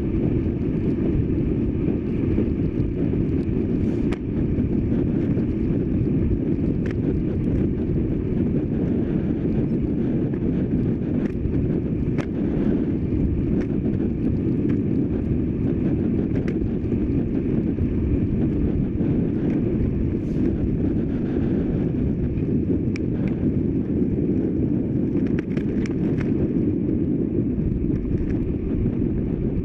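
Steady wind buffeting on a bike-mounted action camera's microphone as a racing bike rides fast on a wet road, a dense low rumble with scattered faint clicks.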